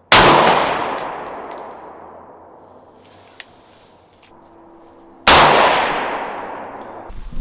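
Two rifle shots about five seconds apart, each with a long echo fading away behind it. These are test rounds fired at a 100-yard target while sighting in a scope.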